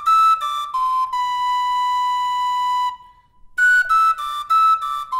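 Tin whistle playing the last phrase of a traditional Galician tune: quick notes stepping down to a long held note. After a short breath, the same phrase starts again about three and a half seconds in.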